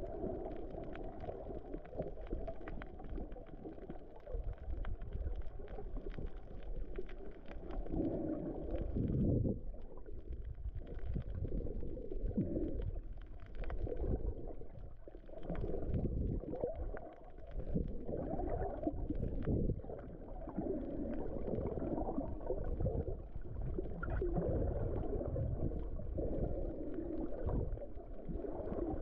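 Muffled underwater rushing and gurgling of moving water as picked up by a camera held underwater, swelling and falling unevenly.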